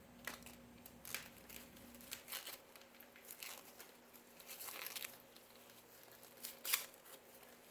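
Packaging being opened by hand: scattered rustling, crinkling and tearing of tape and wrapping, with a sharper crackle near the end.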